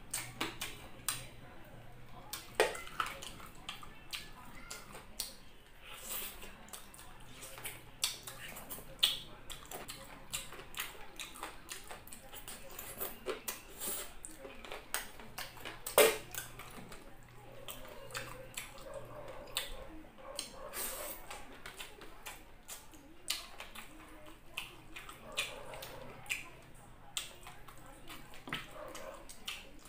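Close-up wet eating sounds from a person eating saucy chicken masala and rice by hand: chewing, lip-smacking and finger-licking, with many sharp, irregular mouth clicks. The loudest click comes about sixteen seconds in.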